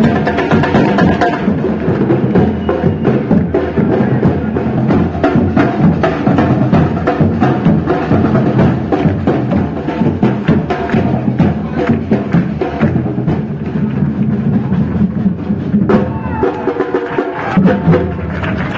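Percussion-heavy fiesta music played live: drums under a dense, fast clicking of wooden percussion. Near the end the clicking thins and voices come in.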